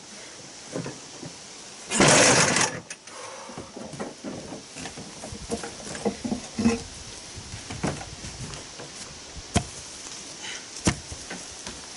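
A heavy stone slab is set down and slid onto a felt-covered cart, making one loud scraping thud about two seconds in. Scattered light knocks and footsteps on the trailer's floor follow, with two sharp knocks near the end.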